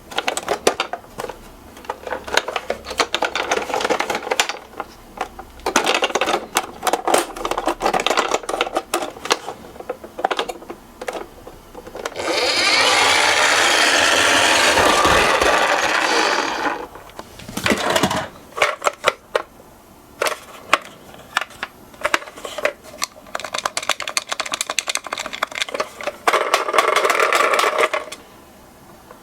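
Die-cast miniature toy cars clicking and clattering as they are handled, with a steady whirring rattle for about four seconds in the middle and again briefly near the end.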